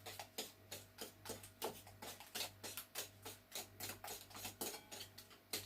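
A spoon clicking against a mixing bowl as butter is stirred into whisked eggs and sugar, about three light clinks a second in a steady rhythm.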